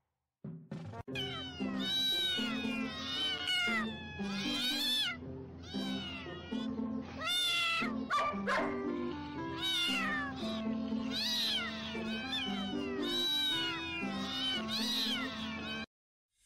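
Cat meows, many in quick succession, each rising and falling in pitch, over background music with held low notes. Both stop suddenly near the end.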